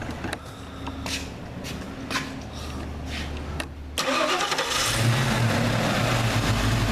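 1992 Ford Mustang 5.0 V8 cranking on the starter for about four seconds, then firing about four seconds in and settling into a steady idle. It starts right up with the sloppy distributor pickup wedged in place, the loose pickup having been the cause of its no-start.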